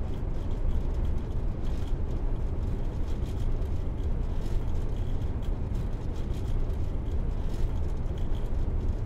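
Car running, heard from inside the cabin: a steady low rumble of engine and road noise with faint light rattles.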